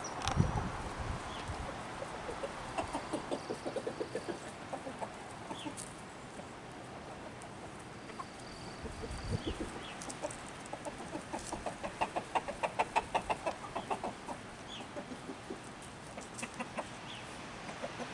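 Foraging chickens clucking, with two runs of rapid clucks: a short one a few seconds in and a longer one about twelve seconds in.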